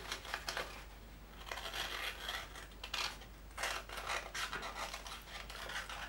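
A sheet of paper being cut by the back edge of a FURA Mini folding knife, with rough scraping and tearing in about three strokes. This edge is not as sharp as the main edge, so the paper drags and tears rather than slicing cleanly.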